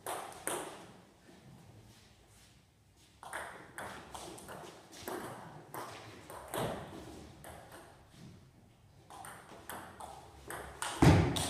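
Table tennis ball clicking off bats and the table in a doubles rally, a regular pattern of about two sharp clicks a second starting about three seconds in. A louder knock comes near the end.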